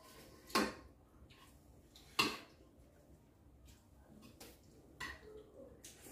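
Spoons and chopsticks clinking against ceramic bowls while eating noodles: two sharp clinks about half a second and two seconds in, then a few fainter ticks.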